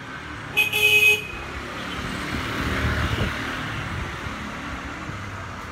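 A vehicle horn honks once, briefly, about half a second in. Then the noise of a passing vehicle swells and fades over the next few seconds.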